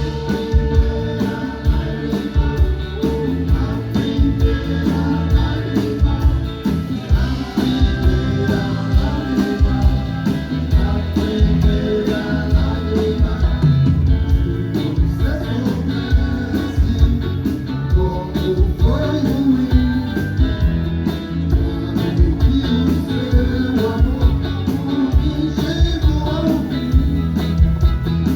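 A live band playing a song with singing, over a steady drum beat.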